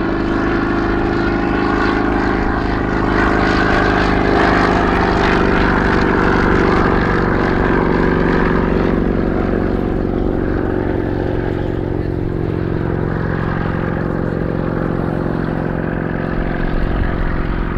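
Bristol 171 Sycamore helicopter flying its display: the steady, pitched run of its radial piston engine mixed with the rotor, swelling a few seconds in and easing slightly toward the end.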